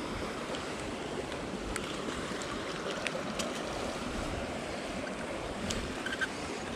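Steady rush of flowing river water, with a few faint clicks scattered through it.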